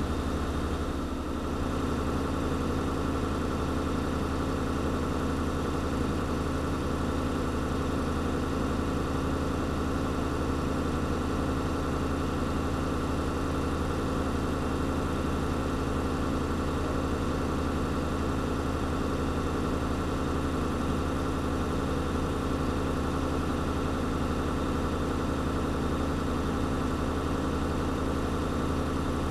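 Fire engine's engine running steadily at a constant speed, an unchanging hum heard from inside its cab, with a slight dip about a second in.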